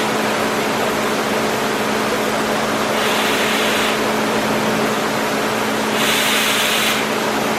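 Trumpf TruLaser 3030 CNC fiber laser cutting machine running, a steady hum and rushing noise. Two bursts of hiss, each about a second long, come about three and six seconds in.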